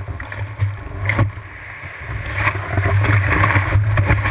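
Surf water rushing and splashing around a surfboard, heard from a camera on the board's nose, with a steady low rumble underneath. It grows louder about halfway through as the board rides into the whitewater.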